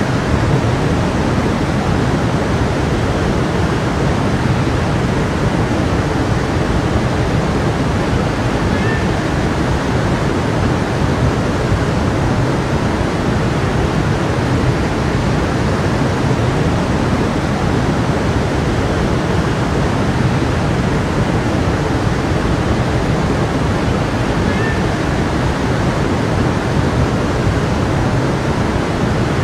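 Stream water running, a steady, unbroken rush.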